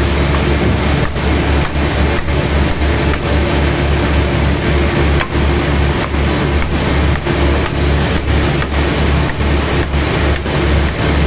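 Sawmill machinery running with a loud, steady low hum and a rushing noise, dipping briefly about twice a second.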